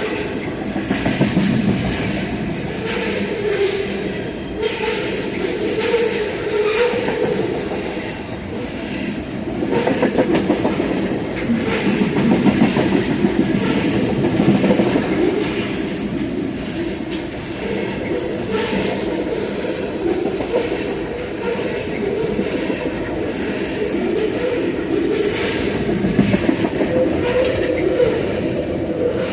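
CN train cars rolling past at close range: a continuous rumble and rattle of wheels on rail, with repeated clacks and a faint high tick about once a second.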